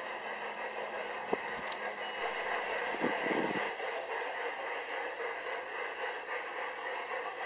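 Garden-scale model train running along its track with a steady rolling hiss, a sharp click about a second in and a brief low rumble about three seconds in.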